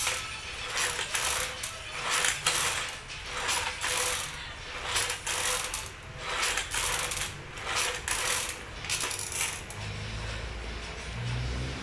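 Vertical ab crunch machine clinking and rattling with each repetition, its metal frame and moving parts giving short clattering bursts, often in pairs. The bursts stop about ten seconds in.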